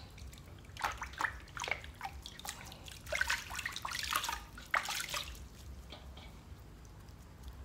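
Water splashing and dripping in a large stainless-steel basin as hands scrub a baby monkey in it: irregular splashes for about five seconds, then quieter.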